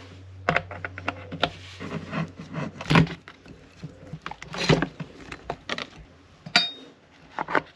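Irregular knocks, clicks and clatter as parts of a Stihl MS180 chainsaw are worked loose and handled with tools on a workbench, with a low steady hum during the first half and a short metallic ping near the end.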